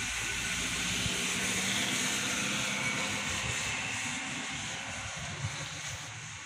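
A distant engine passing by, swelling to its loudest about two seconds in and then slowly fading away.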